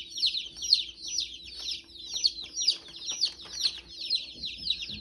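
A box of day-old chicks peeping nonstop: many quick, high, downward-sliding peeps overlapping. A few faint clicks and taps come in the middle.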